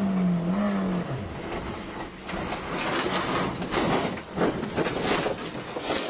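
Onboard sound of a rally car: the engine holds a steady note, then drops away about a second in, followed by a run of irregular knocks, bangs and scraping as the car loses grip and crashes, tumbling over.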